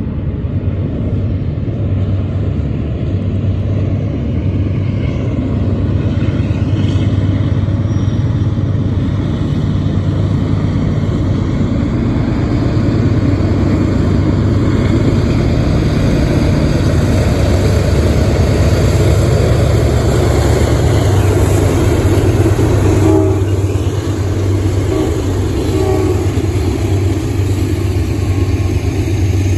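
Three GE Dash 9-40CW diesel-electric locomotives leading a train. Their V16 diesel engines run with a steady low drone that grows louder as they draw near and then pass close by.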